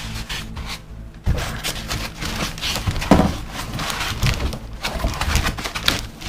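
Rustling, scraping and knocks of packaging being handled while an oscilloscope is unboxed, with a louder thump a little after three seconds, over background music.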